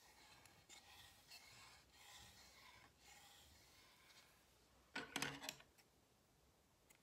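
Yarn rubbing and rustling as it is wrapped round a wooden tassel board, then a short run of sharp scissor snips about five seconds in as the yarn is cut.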